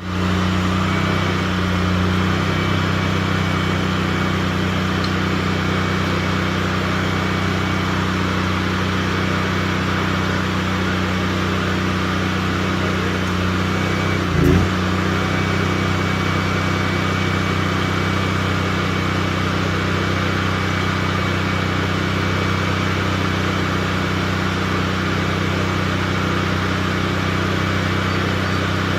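An engine running steadily at a constant speed, with a single knock about halfway through.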